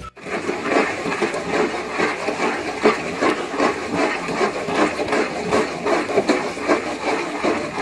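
Cooked mustard greens (saag) being mashed with a hand masher in a large aluminium pot over a high flame. It gives fast, irregular strokes, wet squelches and knocks against the pot, over a steady hiss.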